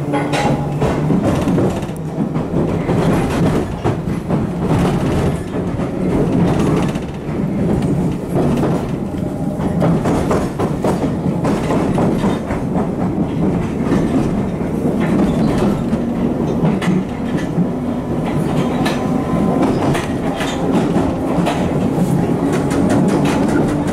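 Bakerloo line tube train (1972 Tube Stock) running along the track: a steady rumble of wheels on rails with frequent clicks and clacks over rail joints.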